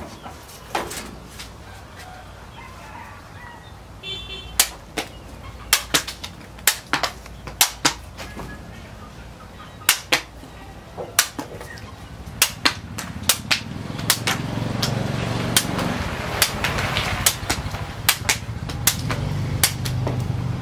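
Handmade long knife chopping in a series of sharp, irregular strikes, about one or two a second. A steady rushing noise builds up from about two-thirds of the way through.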